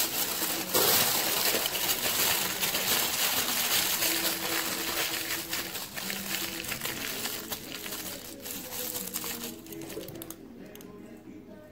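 Aluminium foil crinkling and crackling as a burrito is rolled and squeezed tight in it, dying down near the end.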